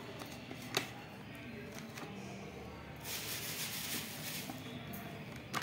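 Small green brinjals being set down and shifted in a clear plastic storage box with a drain rack: a sharp knock against the plastic a moment in and another near the end, with a stretch of rustling handling noise in between.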